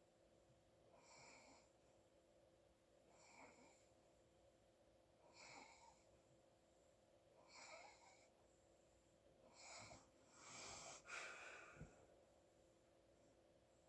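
A sleeping person breathing quietly, one airy breath about every two seconds. Near the end comes a longer, louder breath, followed by a short low thump.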